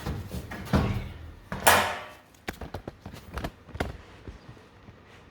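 Handling noise: a run of knocks and clunks, with a short scraping rustle about a second and a half in, the loudest sound, then a few lighter taps.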